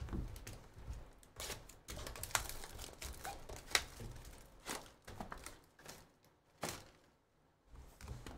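Cardboard trading-card hobby boxes being handled and unwrapped: crinkling and tearing of their plastic shrink-wrap, with light knocks of the boxes on the table. It comes as an irregular run of sharp crackles that dies down near the end.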